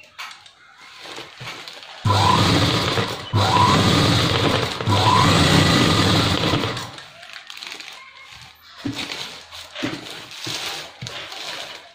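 Domestic sewing machine running in three short runs, stitching a seam along folded fabric, about two to seven seconds in. Afterwards the fabric is shifted and handled, with soft rustles and light clicks.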